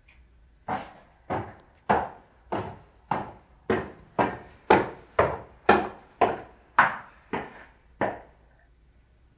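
About fourteen hard strikes on wood at a steady pace of roughly two a second, beginning about a second in and stopping shortly before the end.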